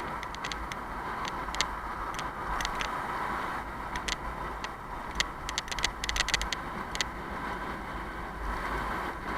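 Steady road and wind noise from riding a bicycle in traffic, with the rush of motor vehicles around and scattered light clicks and rattles from the bike.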